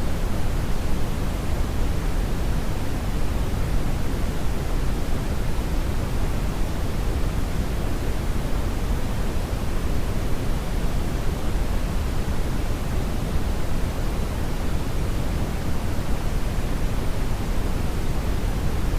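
Brownian noise: a steady synthetic hiss-like rumble, strongest in the bass and fading toward the treble, without change.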